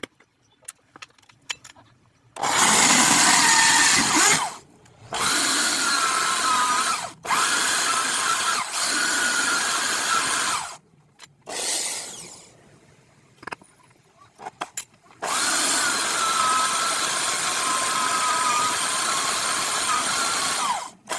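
An electric power tool run in several bursts of a few seconds each, with a short run near the middle and the longest run, about six seconds, near the end.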